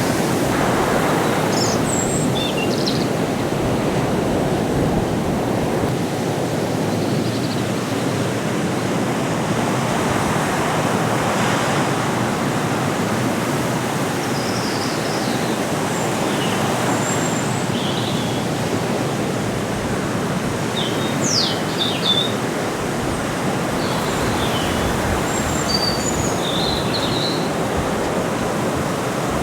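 Sea surf rushing steadily, with scattered brief high chirps and squeaks over it.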